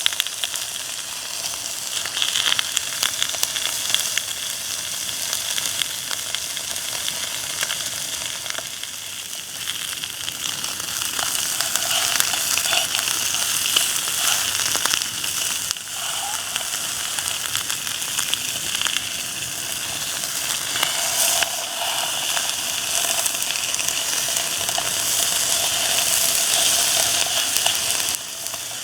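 Pork sizzling steadily as it grills, with a continuous crackle of fat.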